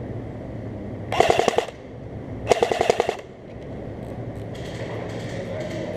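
Airsoft gun firing two short bursts of rapid automatic shots, each about half a second long, the first a little over a second in and the second about a second later.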